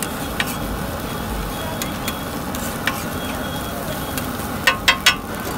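Metal spatula stirring and scraping scrambled egg on a hot flat iron griddle over a steady sizzle, with a few sharp clacks of the spatula on the iron and three loud ones in quick succession near the end.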